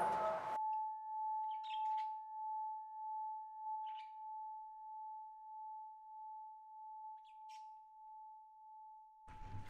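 The band's music cuts off about half a second in, leaving one sustained, nearly pure high tone that slowly fades with a gentle wavering swell. Faint bird chirps come three times over it, and the heavy music crashes back in near the end.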